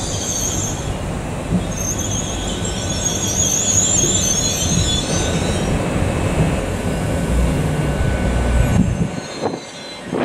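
GWR Class 802 train drawing slowly into the platform, its underfloor diesel engines giving a steady low rumble while a high, wavering squeal comes from the wheels as it brakes. The squeal fades out about halfway through, and the rumble drops away suddenly near the end.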